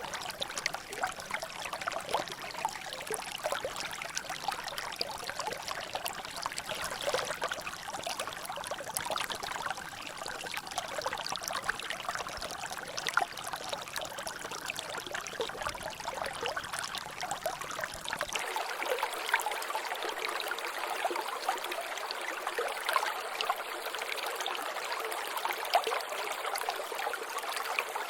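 Water trickling and dripping in a natural drainage, a steady dense patter of small drops and splashes. About two-thirds of the way through the sound turns thinner as its low rumble drops away.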